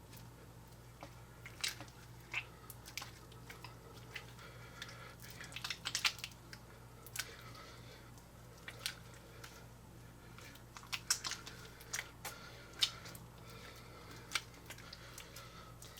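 Coke slime being squeezed and stretched by hand, giving irregular small wet pops and clicks, with a cluster of them about six seconds in and again around eleven to thirteen seconds, over a faint steady hum.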